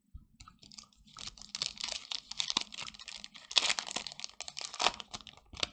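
Foil Pokémon booster pack wrapper crinkling and tearing as it is opened by hand, with a dense rustle and a few sharper crackles.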